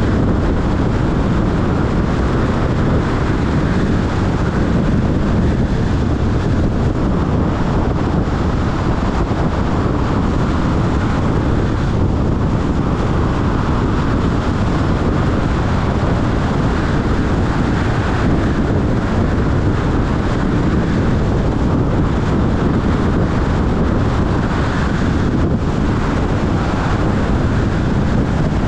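Steady rushing road noise of a car driving along a highway: tyre rumble mixed with wind buffeting the microphone.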